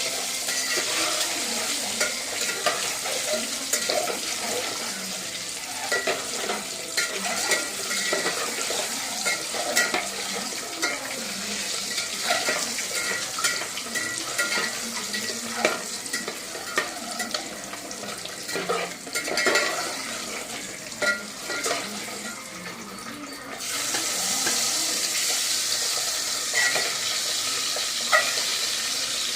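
Boiled eggs frying in hot oil in a pan, sizzling steadily, with frequent scrapes and clicks of a spoon stirring them. The sizzle thins for a few seconds about three-quarters of the way through, then comes back.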